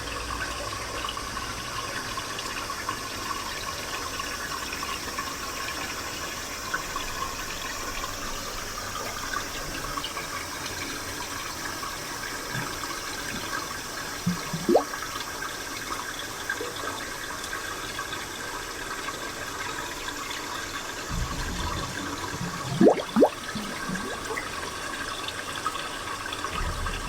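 Spring water flowing and trickling steadily, with a few short louder gurgles about halfway through and a couple more near the end.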